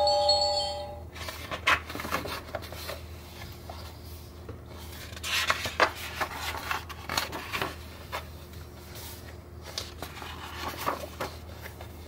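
An electronic tune from a wand-activated children's sound book stops about a second in. Then the stiff pages of the picture book are turned and handled, with paper rustling and soft taps.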